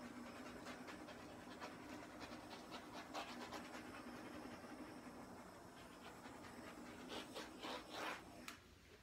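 Handheld torch hissing steadily as its flame is played over wet acrylic pour paint to pop bubbles and bring up cells, with a few faint crackles; it cuts off near the end.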